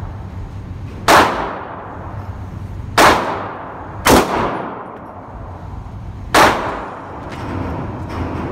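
Four 9mm pistol shots from a Glock 19, fired at uneven intervals, each a sharp crack with a ringing echo off the walls of an indoor range.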